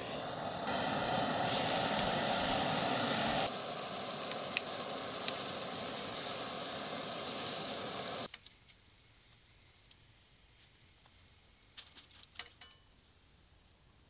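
Bacon sizzling on a steel saw blade over the hiss of a propane torch flame. It cuts off suddenly about eight seconds in, leaving only a few faint clicks.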